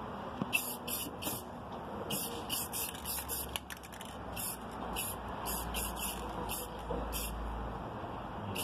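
Aerosol can of clear spray paint hissing out in many short spurts, about three a second in quick runs of three to five, as a clear coat is misted onto a latex mask.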